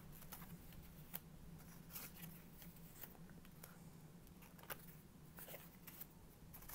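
Near silence with a few faint, short rustles and ticks of craft paper pieces being handled and pulled apart, over a low steady hum.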